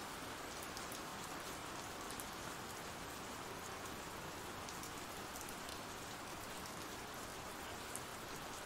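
Steady rain falling, an even hiss with faint scattered ticks of single drops.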